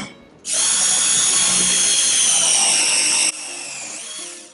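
Milwaukee M12 ProPress cordless press tool crimping a copper press fitting: its motor runs loud and steady with a high whine for about three seconds, then drops to a quieter run that winds down with a falling pitch near the end.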